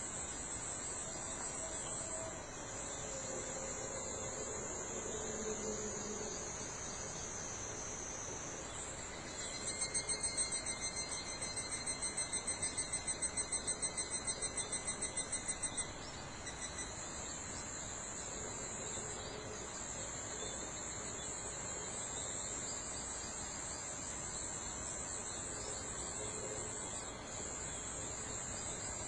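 Insects trilling steadily at a high pitch. From about a third of the way in, a louder insect song of rapid repeated pulses joins for some six seconds and then stops abruptly.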